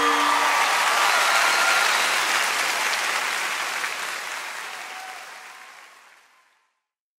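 Audience applause after a song ends, the last chord dying away under it, then fading out steadily to silence.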